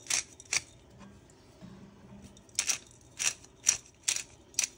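Black pepper being dispensed into the soup pot: short, gritty, crunching strokes, two and then, after a pause of about two seconds, five more at about two a second.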